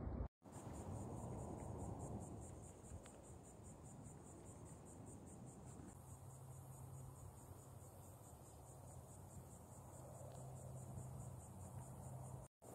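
Faint, high-pitched insect chorus trilling in steady, rapid, even pulses over low background noise, with a brief dropout just after the start and again near the end.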